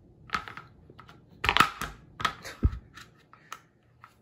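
A baby's hands patting and slapping at food on a plate and the tabletop: irregular taps and knocks, with a heavier thump about two and a half seconds in.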